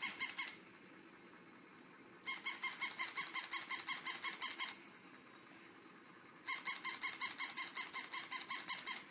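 Plush toy dog giving rapid high-pitched squeaking yips, about six a second, in three bursts of about two seconds each with short pauses between.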